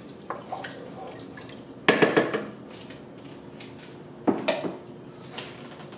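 Cookware clatter: a wooden spoon and a metal pot lid knocking against a cooking pot, a few sharp knocks with the loudest clusters about two seconds in and just past four seconds.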